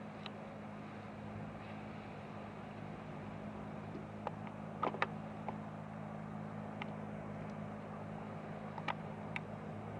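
Small outboard motor on an open fishing boat running steadily at cruising speed, a low even hum. A few brief sharp high clicks, most of them about five seconds in.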